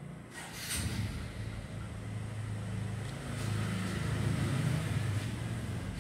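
A motor vehicle's engine running with a low, steady rumble. It comes in about a second in, grows louder toward the middle and eases slightly near the end, like a vehicle passing by.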